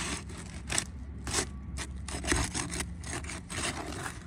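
Flat pry bar scraping under an asphalt shingle tab in a series of irregular strokes, breaking the adhesive seal strip that holds the tab down.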